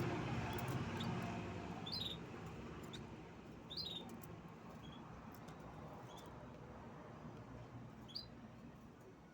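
A canary giving short, high chirps, each dropping quickly in pitch, every second or two. A low rumbling noise fades away over the first couple of seconds.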